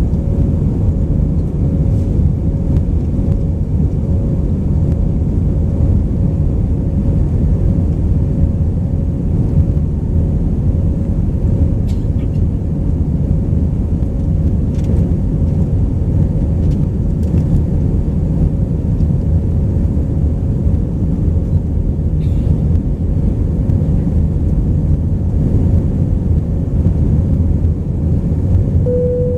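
Steady cabin noise inside an Airbus A319 in flight: an even, low rumble of the engines and airflow, with a faint steady hum above it and a few light clicks.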